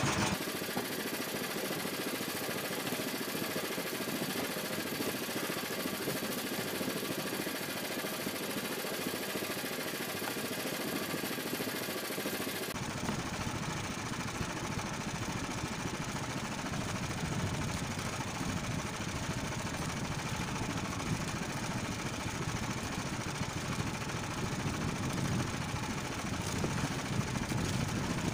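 Small engine of an outrigger fishing boat idling steadily. About a third of the way through, the sound abruptly turns lower and duller.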